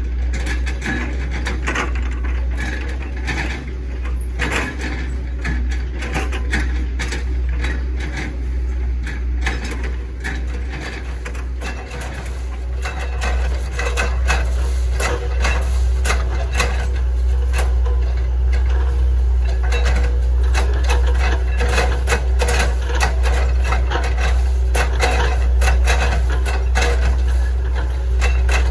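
Hitachi ZX110 excavator's diesel engine running with a steady low drone, under many sharp cracks and crunches of oil palm trunk being broken up and chipped by the bucket. It gets louder from about halfway through.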